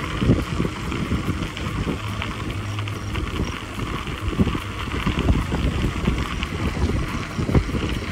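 Wind buffeting the microphone of a camera riding on a moving bicycle, with irregular low rumbling gusts over a steady hiss of the tyres rolling on a crushed-gravel trail.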